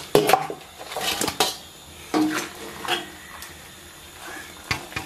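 Stainless steel bowls and basins clanking and knocking together while wet pork intestines are tipped and handled, a series of separate metallic knocks.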